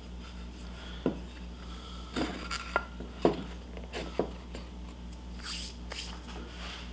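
Light wooden knocks and clicks as two slotted wooden pieces are fitted together and handled, several in quick succession between about one and four seconds in, then a brief rubbing scrape near the end.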